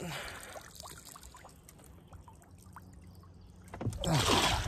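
Lake water pouring and dripping off a fish stringer of crappie lifted out of the water, with a louder splash near the end.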